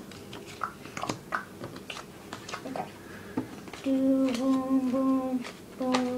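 Trading cards being handled and flicked through, many light card clicks and ticks. About four seconds in, a person starts humming a few held notes, stops briefly, then hums again near the end.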